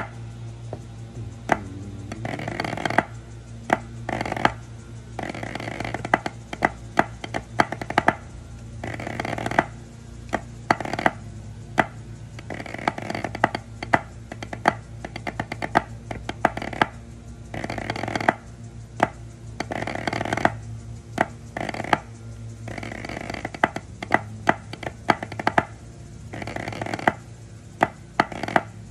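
Drumsticks tapping a rubber practice pad in a quick, steady rhythmic pattern with frequent louder accented strokes, over music.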